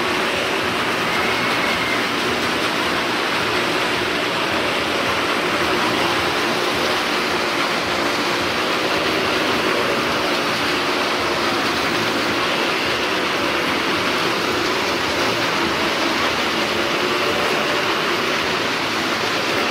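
Cars and motorcycles circling the vertical wooden wall of a well-of-death show: engines running and wheels on the planks making one steady, loud, unbroken din.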